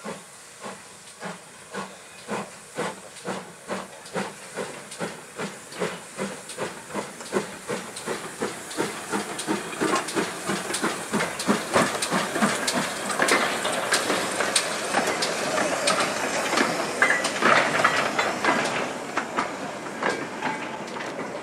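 GWR 'Small Prairie' 2-6-2T tank engine No. 5553 moving off: its exhaust beats start slow, then quicken and grow louder as it comes past, with a loud hiss of steam in the second half.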